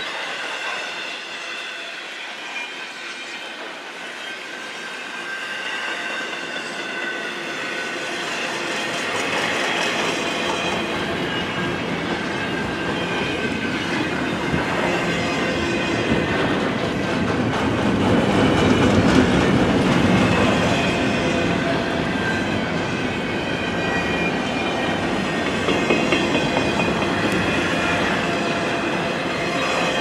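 Double-stack intermodal well cars of a long freight train rolling past. Steel wheels clatter over the rail, with thin high-pitched wheel squeal. A low rumble builds from about a third of the way in, and it is loudest around the middle.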